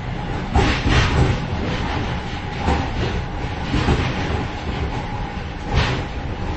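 Train running at speed heard from inside the vestibule between cars: a continuous low rumble with wheels clacking over rail joints and loose parts clattering, some knocks louder than others, the loudest a little before the end.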